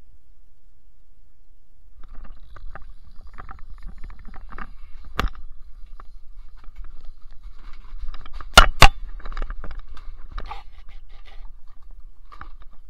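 Irregular scraping and clicking from objects being handled, with two loud sharp knocks in quick succession a little past halfway.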